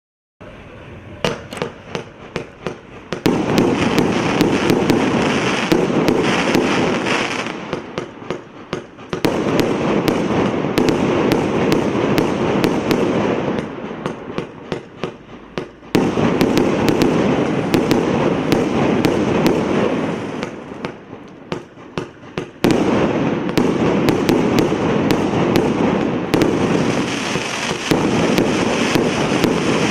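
Absolute Fireworks 'Dominator' single-ignition fireworks cake (2 x 50 shots) firing. Runs of separate sharp bangs alternate with long spells of dense, rapid crackling, switching back and forth several times.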